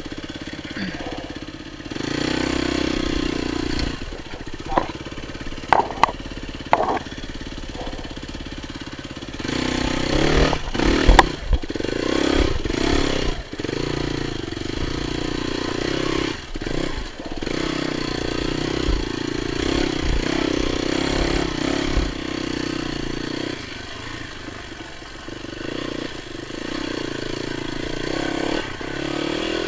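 Dirt bike engine running, its revs rising and falling with the throttle, with hard knocks and clatter from the bike over rough ground, most of them between about ten and seventeen seconds in.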